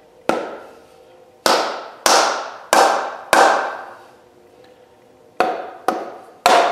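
Mallet blows on a bolted two-piece brake caliper, knocking apart halves seized together by galvanic corrosion. About eight sharp strikes, each with a short metallic ring: a run of five, a pause of about two seconds, then three more.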